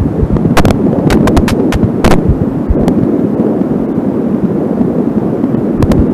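Angelsound fetal doppler picking up a 13-week fetus's heartbeat as a dense, low whooshing signal. Sharp crackles of static cut through it several times in the first three seconds and again at the very end, which the uploader puts down to a strained, too-short audio cable.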